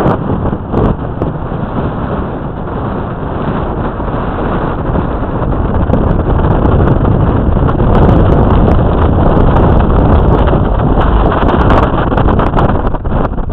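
Strong storm wind buffeting the microphone: a loud, gusting rumble with no steady pitch, which drops away suddenly at the very end.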